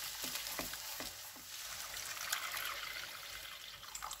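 Egg, shallots and chillies sizzling in oil in a frying pan. A wooden spatula taps and scrapes a few times in the first second and a half. Water is then poured into the hot pan, trickling and hissing.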